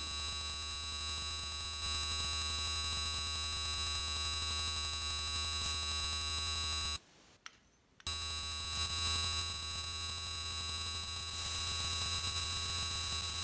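Rechargeable electric arc lighter buzzing steadily as its small arc is held to a stick, working hard against wood too thick for it. The buzz cuts off about seven seconds in and starts again a second later.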